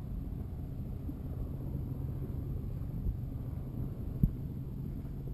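Low steady rumble with a faint hum from the motor tender's engine running, mixed with wind on the microphone. A sharp knock about four seconds in, with a softer one a second before.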